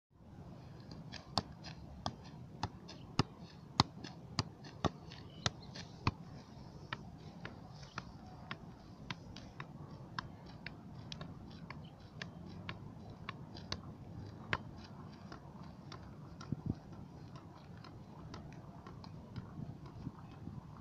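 A football being juggled: a regular run of sharp knocks as foot, thigh and head strike the ball, roughly every half second, louder in the first six seconds and fainter after.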